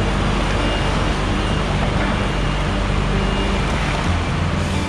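Heavy diesel engines running steadily, from a truck and a wheel loader.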